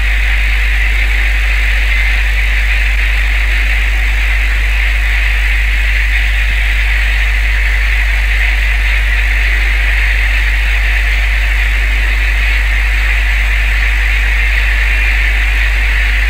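Steady drone of a boat's engine heard from on board, with a constant low hum beneath it.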